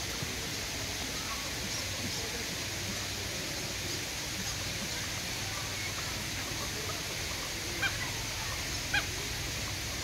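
Waterfowl honking in a bird enclosure over a steady background noise, with two short, louder calls about a second apart near the end.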